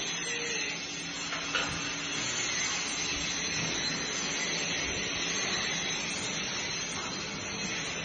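Arc welding in a fabrication shop: a steady hiss and crackle with a faint hum underneath, and a single knock about one and a half seconds in.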